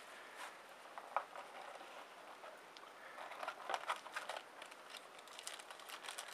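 Faint, irregular rustling and crackling of a trading-card box and its packs being handled, with clusters of small crackles about a second in, around the middle and near the end.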